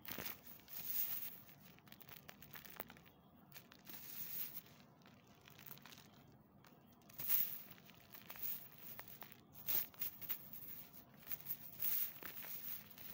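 Crumbled gym chalk squeezed and rubbed between the fingers: gritty crunching and rustling of chalk lumps and powder in irregular bursts, with a few sharper crunches in the second half.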